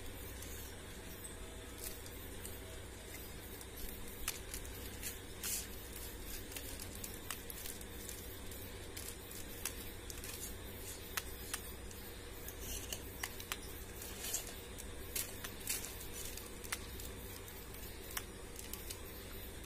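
Irregular light, sharp clicks and taps of common mynas' beaks pecking at a hand-held plastic object, over a steady low hum.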